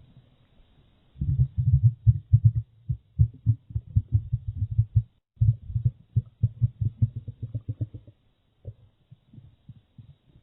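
Stomach growling played back slowed to a quarter speed, so it comes out as a deep, rapid pulsing rumble. It starts about a second in, breaks briefly near the middle, and thins out to scattered faint pulses in the last couple of seconds.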